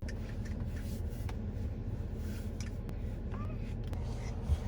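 Low steady rumble of an idling vehicle, with a few faint clicks.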